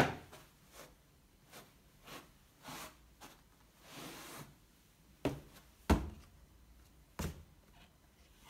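Hard-soled boots stepping onto books and cushions on a wooden parquet floor: soft footfalls and a brief scuff, with four sharp knocks, the loudest right at the start and about six seconds in.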